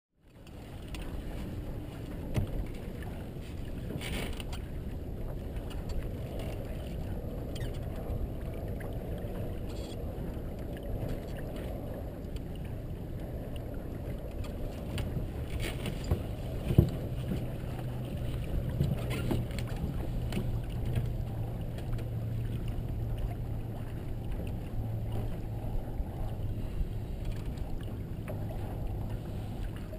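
Wind buffeting the microphone and water rushing along the hull of a Merit 25 sailboat under sail, with a few sharp knocks and a low steady hum that comes in a little past halfway.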